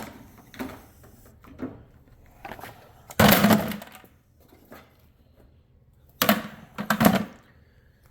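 Parts stripped from a race car, brackets and pieces of wiring harness, being tossed into a bucket and clattering in it: a few light knocks at first, a longer loud clatter about three seconds in, then two sharp hits near the end.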